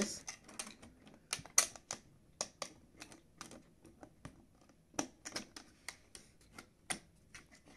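Hard plastic clicks and taps as 3D-printed headstrap parts are pushed and seated together, irregular and a few a second, with a handful of sharper clicks.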